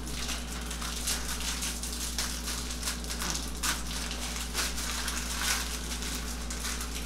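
Irregular crinkling and crackling of a bandage and its wrapper being handled and opened, over a steady low hum.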